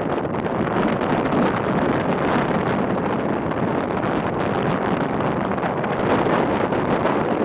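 Strong blizzard wind, around 50-60 km/h, blowing across the microphone: a loud, steady rushing noise that swells slightly now and then.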